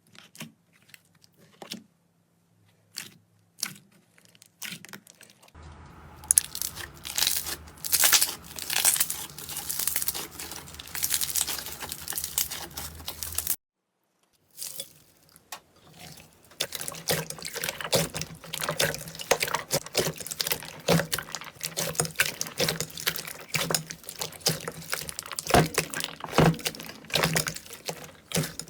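Slime being handled and pressed by hand: sticky clicks and pops, sparse at first, then dense crackling and crunching. It cuts off for about a second halfway through, then dense crackling resumes.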